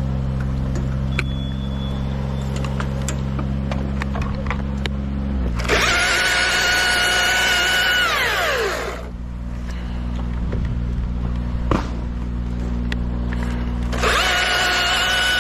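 Chainsaw revved to full speed for about two and a half seconds, its pitch falling away as the throttle is released, then revved again near the end. Under it a steady low engine drone and a few scattered clicks.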